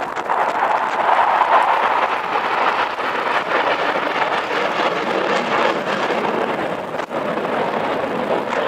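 Formation of jet aircraft passing overhead: a loud, steady rushing roar with no clear pitch, swelling about a second in.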